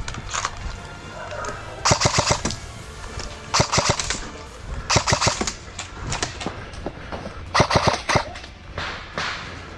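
Airsoft guns firing four short full-auto bursts of rapid shots, each lasting about half a second, with a fainter burst near the end.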